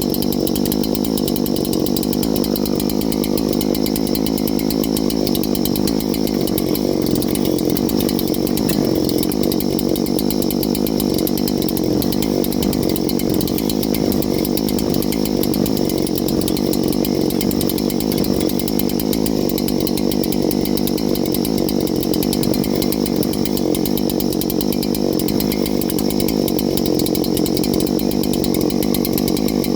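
Neo-Tec NH8120 chainsaw, a Husqvarna 3120XP clone with a large two-stroke engine, running steadily at a constant speed with no breaks.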